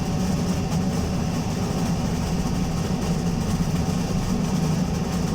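Alexander Dennis Enviro200 MMC single-deck bus running with a loud, steady low rumble.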